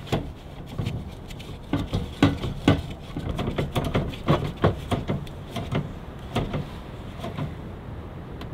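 Irregular clicks, knocks and rubbing as a 1-pound propane cylinder is handled and fitted into a Mr. Heater portable propane heater, metal and plastic bumping in its holder.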